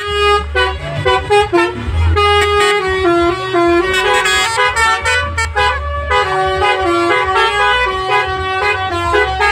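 A bus's telolet horn, a multi-tone musical horn, playing a quick tune of stepped notes over the low rumble of the bus engine.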